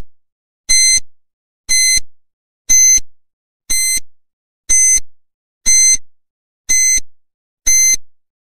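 Countdown timer sound effect: short, high-pitched electronic beeps, one about every second, ticking off the seconds of a countdown.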